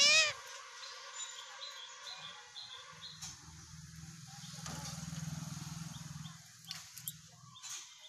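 A rose-ringed parakeet gives one short, loud, harsh screech right at the start. Faint high chirps and a faint low hum follow, with a few soft clicks near the end.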